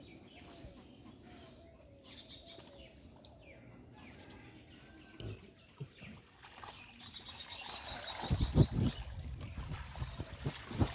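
Pond water splashing and sloshing as a wet fishing net is hauled up from the shallows, loudest about eight seconds in. A bird chirps in short runs of quick high notes.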